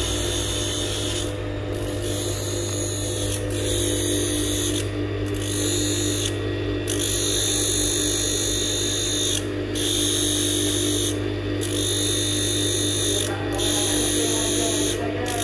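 Electric blade-sharpening grinder running with a steady hum, a high grinding hiss over it that breaks off briefly every second or two while a blade is ground.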